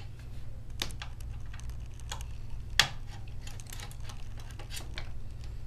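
Small clicks and taps of a Phillips screwdriver working the screws of a MacBook Pro's aluminium bottom case, with one louder click about three seconds in, over a steady low hum.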